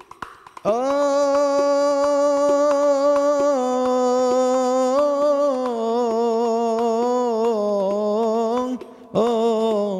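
A male munshid sings an Islamic devotional nasheed in a long held melismatic note that starts about a second in, its pitch stepping slowly downward and wavering near the end. Light riq (tambourine) taps sound underneath, and a short sung phrase follows just before the end.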